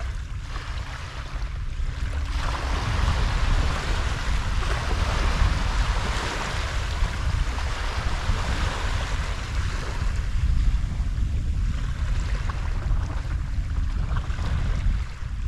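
Water splashing and sloshing at the muddy edge as a big conger eel, held in the shallows to recover before release, kicks and thrashes. It swells about two seconds in and comes and goes until near the end, over wind rumbling on the microphone.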